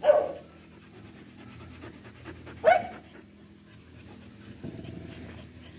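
Dogs playing together: two short, sharp barks, one right at the start and one about two and a half seconds later, each falling in pitch. A shorter, rougher dog sound follows near the end.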